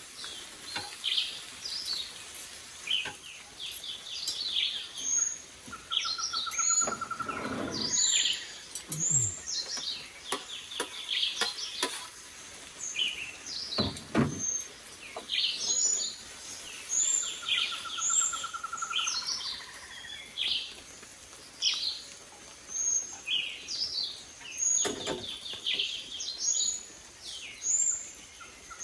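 Many tropical forest birds chirping and whistling, with overlapping calls. A lower, even trill comes twice, and a few dull knocks sound among the calls.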